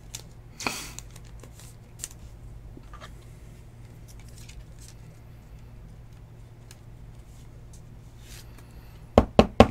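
A trading card being slid into a clear plastic sleeve and rigid plastic top loader: a short swish of the card going in about a second in, then light plastic clicks and rustles of handling, and a quick run of three or four sharp taps near the end.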